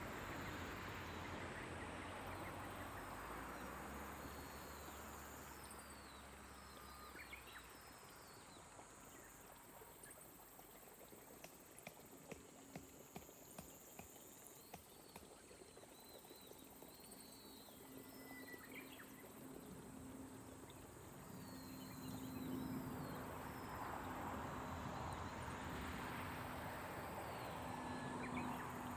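Gentle rain falling, swelling near the start and again near the end, with small birds giving short chirps and a steady high insect drone. A row of faint clicks about halfway through.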